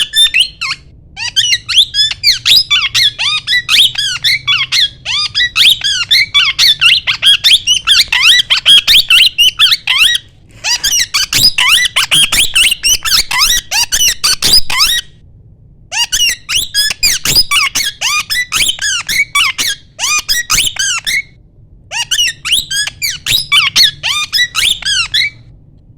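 Plum-headed parakeet calling: rapid, high-pitched squeaky chirps, several a second, in about five long bouts with short breaks between them, stopping shortly before the end.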